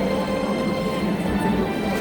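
Background music playing steadily, with no speech.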